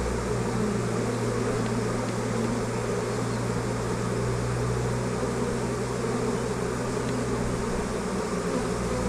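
Honey bee swarm buzzing steadily, a constant hum from bees running into the nuc box and fanning towards it.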